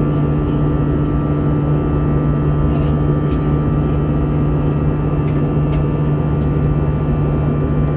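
Steady cabin drone of an Airbus A320-214 in flight, heard from a seat inside the cabin: engine and airflow noise with a constant low hum. The aircraft is still climbing after takeoff. A few faint ticks are heard in the cabin.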